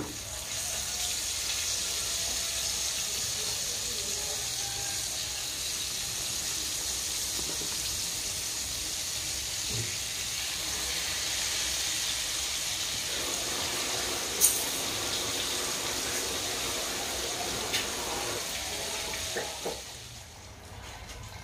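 Battered chicken pieces deep-frying in a wok of hot oil: a steady sizzle, with a sharp click of metal tongs on the pan about two-thirds of the way through. The sizzle dies down near the end.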